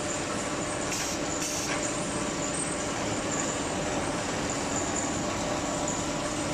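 Factory production-line machinery running steadily: a continuous mechanical hum and hiss with a low steady tone.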